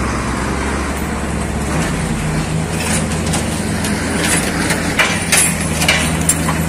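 Lorry engine running steadily with a low hum, with several sharp clanks and knocks in the second half.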